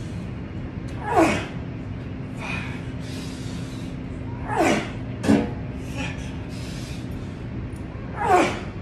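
A man's hard, voiced exhalations during pull-ups on a bar: three forceful breaths a few seconds apart, one per rep, each falling in pitch. A short sharp knock comes about five seconds in.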